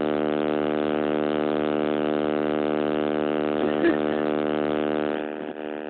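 Loud, steady electrical buzz from a damaged phone microphone, a drone of many evenly spaced tones that drops in level about five seconds in.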